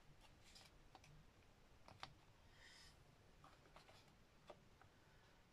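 Faint scattered clicks and taps of hands handling a card and small paper-craft pieces on a cutting mat, the sharpest click about two seconds in, with a brief rustle just after it.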